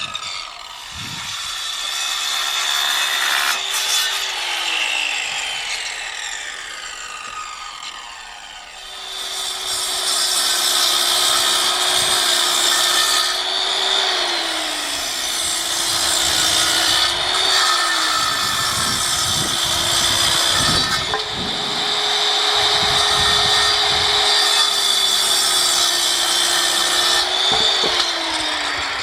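Electric power saw cutting through wood, the motor's pitch falling under load several times as the blade works through the cuts, with a quieter lull a few seconds in.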